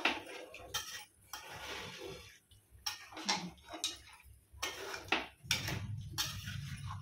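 Metal spatula scraping and clacking against a metal kadhai while stirring chicken and potato curry, in irregular strokes.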